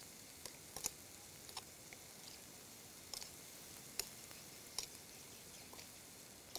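A metal spoon clinking and tapping against a glass bowl as sliced beef is mixed with its marinade: faint, irregular ticks, several seconds apart at times, over a low hiss.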